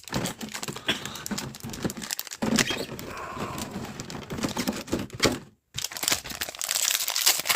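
A foil Pokémon card booster pack crinkling as it is torn open and handled, with irregular crackles and clicks.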